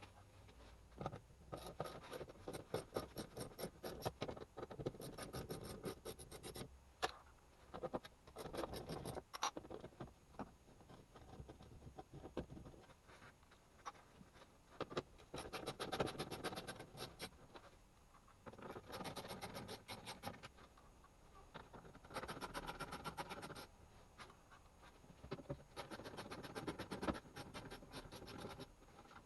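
Hand ratchet wrench clicking in short runs of fast, even clicks as bolts holding the underbody panel below the subframe are undone, with a few single metallic knocks between the runs.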